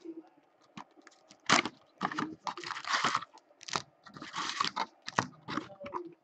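Cardboard hockey card box being opened and its foil packs pulled out and set down on a table: irregular crinkling and rustling with a few sharp taps.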